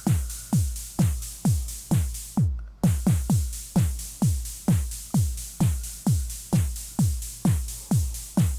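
Electronic background music with a steady kick-drum beat, about two beats a second, each kick dropping in pitch; the high end cuts out briefly once, a couple of seconds in.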